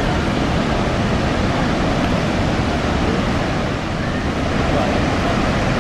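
Steady roar of Niagara's Horseshoe Falls: a constant heavy rushing of falling water, deepest in the low end.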